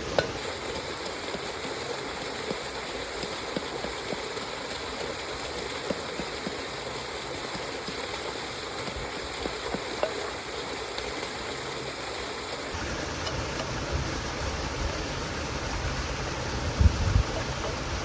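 Stream water flowing steadily, with faint scattered clicks. Low rumble picks up in the second half, and a few low thumps come near the end.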